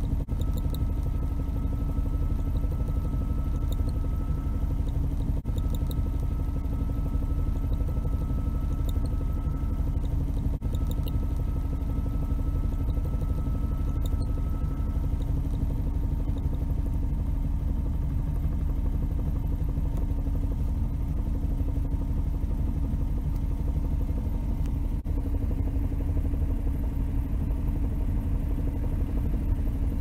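Mercedes-Benz W113 230SL's straight-six running, with a thin, steady high-pitched squeal ("kyuru kyuru") from the automatic transmission's shift lever buzzing against its chrome shift gate. About halfway through, the squeal stops when the shift lever is touched, which shows the rattling lever and gate to be the source.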